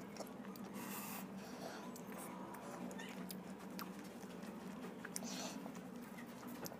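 Close-up chewing and mouth sounds of someone eating chicken biryani by hand: scattered sharp wet clicks and lip smacks, with two short hissy smacks, one about a second in and one past five seconds, over a steady low hum.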